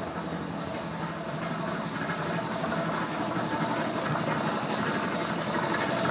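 Homemade air compressor, an old Coast to Coast compressor pump on a propane-tank receiver, running steadily and filling the tank; the sound grows slowly louder.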